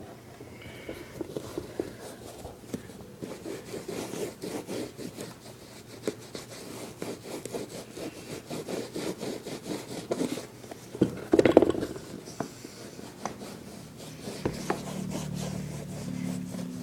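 Cloth rubbing leather conditioner into a sneaker's leather upper in quick, irregular strokes, with a louder scrape about eleven seconds in. A low hum comes in near the end.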